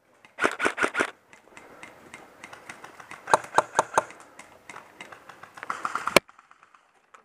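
Airsoft guns firing in short bursts of sharp cracks. There is a quick run of about five shots near the start and another of about four in the middle, with scattered lighter clicks between. The sound cuts off abruptly about six seconds in.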